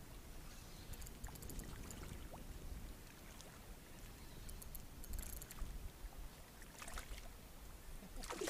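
Low steady rumble on the water around a small boat, with a few brief splashes from a hooked snook thrashing at the surface beside it. The splashes come a little past midway and again near the end, where one is the loudest.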